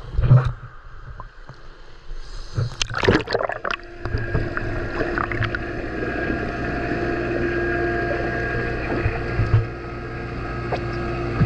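Water splashing and sloshing as a camera is dipped into a swimming pool, then, once it is under the surface, a steady underwater drone with a low hum and a few fixed steady tones.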